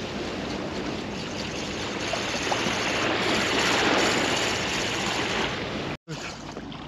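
Small waves washing onto a sandy shore, a steady surf noise that swells and then eases off. It breaks off abruptly about six seconds in, giving way to a quieter background with a few light clicks.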